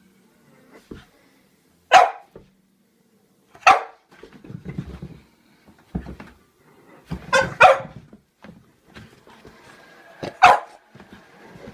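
French bulldog barking in short, sharp single barks: five in all, spaced a couple of seconds apart, with two in quick succession past the middle.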